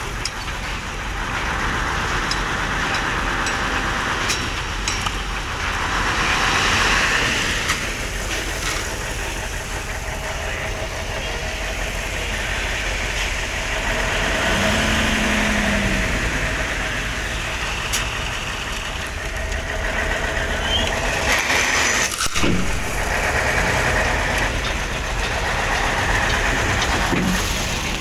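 Diesel dump truck engine running while crushed stone slides and pours off its raised tipper bed, a steady rushing hiss over the engine rumble that swells and fades.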